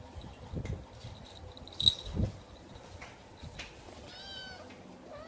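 A cat meows briefly about four seconds in, among a few soft thumps.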